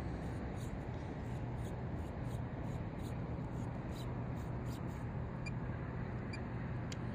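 Steady outdoor background hiss with a faint low hum, and scattered faint high-pitched ticks.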